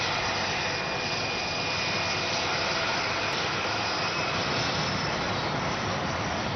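Jet aircraft noise: a steady rushing hiss with a thin, high, steady whine through it.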